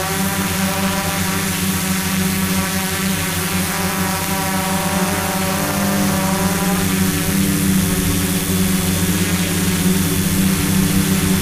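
Hexacopter's electric motors and propellers running in a hover: a steady hum of several close pitches that drift slightly up and down.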